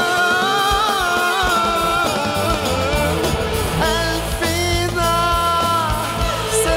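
Live pop band with a violin section, electric and bass guitars, keyboards and drums playing an instrumental passage over a steady beat.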